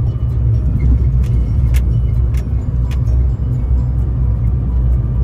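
Vehicle driving on a rough road: a steady low rumble with scattered sharp knocks and rattles.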